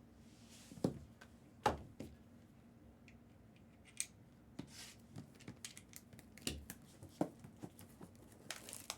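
A sealed cardboard case of trading-card boxes being opened by hand: scattered clicks, knocks and short scraping sounds of cardboard and tape, the sharpest two in the first two seconds.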